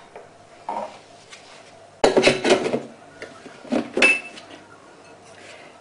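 Thermomix lid being handled and fitted onto the stainless-steel mixing bowl: a faint knock, then a cluster of clattering knocks about two seconds in and a couple more around four seconds, one with a short metallic ring.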